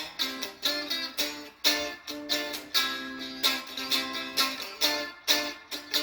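Epiphone SG Modern Figured electric guitar played clean through an amp with the pickup selector in the middle position and the pickups wired out of phase (phase reverse). Picked notes and chords ring out at about two attacks a second.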